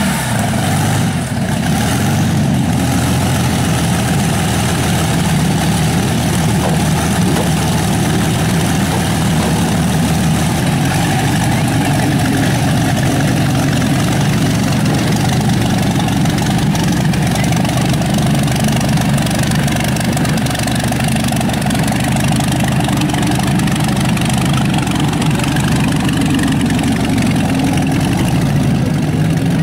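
Bentley-Packard special's Packard V12 engine idling steadily, just after a cold start.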